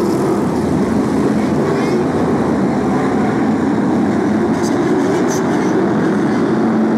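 A pack of BriSCA F1 stock cars' V8 engines at full throttle as the field accelerates away from the green-flag start: a loud, steady, unbroken din of many engines.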